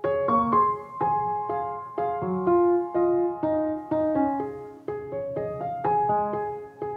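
Background piano music: a slow, gentle melody of struck notes, about two a second, over repeating chords.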